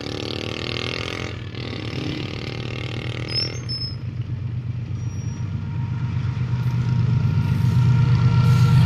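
GE diesel-electric locomotive running as it approaches, a steady low engine drone growing gradually louder. A higher rushing noise lies over it for about the first three and a half seconds, then stops suddenly.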